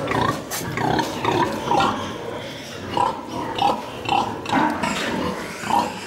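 Pigs grunting in a run of short, separate grunts, one every half second or so, with a few sharp knocks among them.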